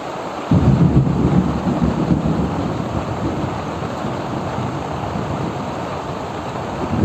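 Heavy rain hissing steadily while thunder rumbles. A sudden loud low rumble breaks out about half a second in and slowly fades, and another begins near the end.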